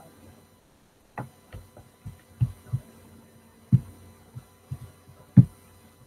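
About ten soft, irregular low thumps, the loudest near the middle and near the end, over a faint steady hum.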